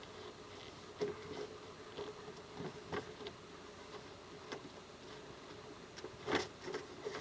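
Scattered knocks and rubbing as the parts of an inflatable boat are handled and fitted during assembly. The loudest knock comes about six seconds in, over a faint steady hum.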